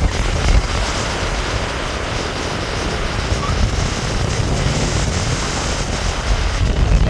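Fast-flowing river water rushing: a loud, steady, even wash of noise with a strong low rumble beneath it.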